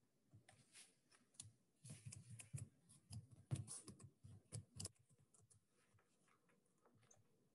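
Faint, irregular clicking and tapping, thickest between about two and five seconds in, then thinning out.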